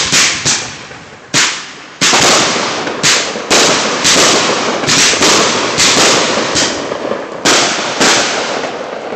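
Aerial fireworks shells bursting, a loud report right at the start and a couple more in the next second and a half, then a rapid barrage of bangs about two a second from two seconds in, each with a fading tail, easing off near the end.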